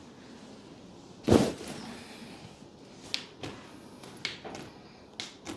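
A single heavy thud about a second in as a chiropractic thrust is delivered on the treatment table, followed by several short, sharp clicks.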